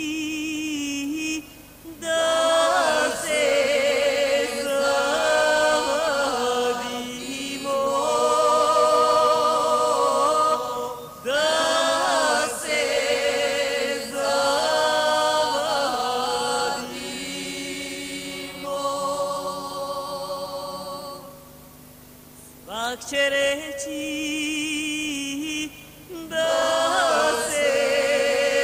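Singing voices holding long, wavering notes in phrases of a few seconds, with little or no instrumental accompaniment; the singing drops to a softer stretch a little after the middle before rising again.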